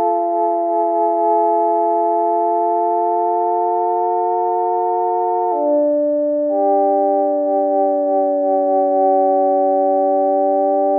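Experimental ambient music: a synthesizer holds a sustained chord of several steady notes, then moves all at once to a new, lower chord about halfway through and holds it.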